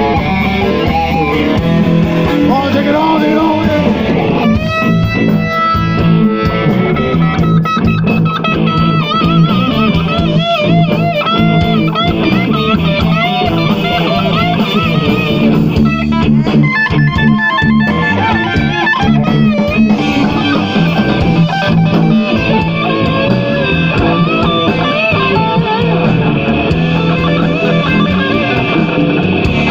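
Live blues-rock band playing an instrumental passage between sung verses: an electric guitar lead with bent, wavering notes over a steady bass line.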